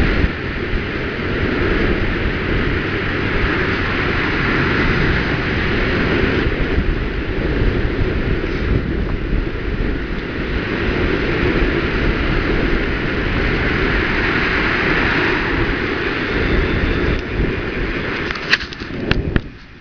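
Steady rush of wind buffeting the microphone while moving along a path, over the noise of freeway traffic that swells twice. A few sharp clicks near the end.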